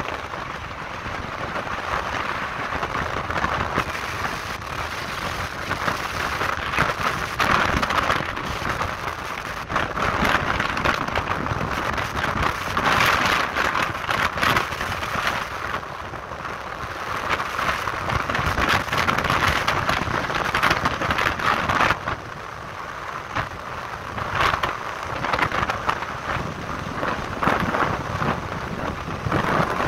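Wind rushing and buffeting over the microphone of a camera held on a moving motorcycle, with road and engine noise underneath; the rushing surges and eases every few seconds.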